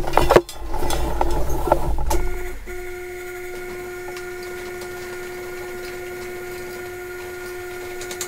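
Overhead electric hoist motor running with a steady, even-pitched whine that starts about two seconds in, after a couple of seconds of knocks and rustling as the hanging part is handled.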